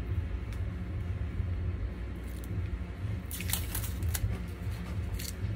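Small plastic parts handled in the fingers, giving short crinkling, scraping bursts from about two seconds in, the busiest a little past the middle, over a steady low hum.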